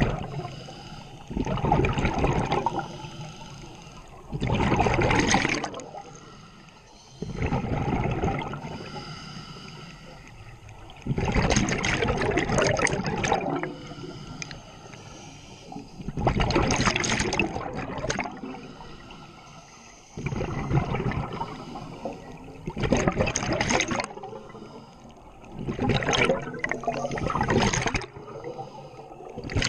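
A scuba regulator heard underwater: exhaled air leaves the regulator in loud bursts of bubbling every three to five seconds, with quieter gaps between the breaths.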